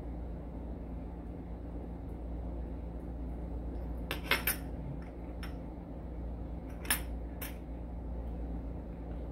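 A handful of light metallic clicks and clinks from the brass plug of an Evva 3KS lock cylinder and its small parts being handled during reassembly, the loudest pair about four seconds in and a few more up to about seven and a half seconds. A steady low hum runs underneath.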